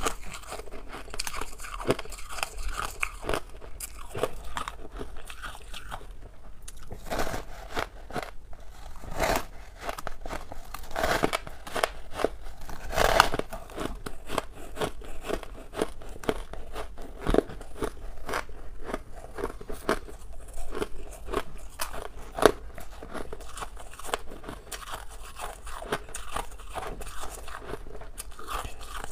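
Powdery frost ice crunching close to the microphone as it is squeezed into a lump by hand, then bitten and chewed: dense crackling crunches with a few louder bites.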